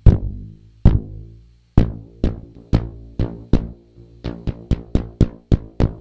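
A stretched elastic band twanged repeatedly, each pluck a sharp, low note that rings briefly and dies away. About fourteen twangs, coming faster in the second half.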